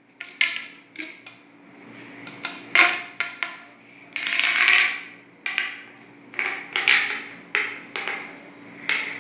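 Fidget-toy packaging being handled and opened: irregular crinkles, rustles and sharp clicks, with a few longer rustling bursts.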